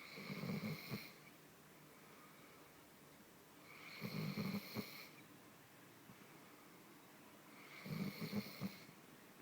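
A very tired dog snoring in deep sleep: three slow, regular snores, each about a second long and about four seconds apart.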